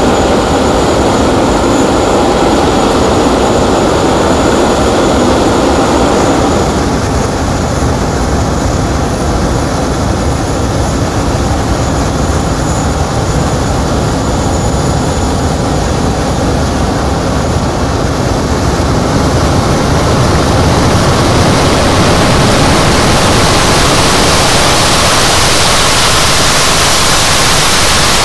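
Two Rolls-Royce Avon turbojets of an English Electric Lightning F.6 running loud on the ground, a steady jet roar with a high whine over it. About twenty seconds in the whine fades and a harsher, rushing roar builds and holds.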